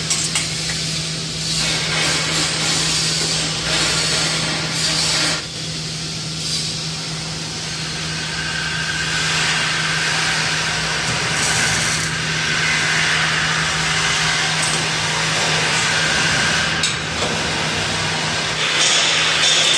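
Arc welding and metalwork on a steel-tube frame: crackling, hissing noise that shifts in strength, with tool scraping on the steel, over a steady low machine hum.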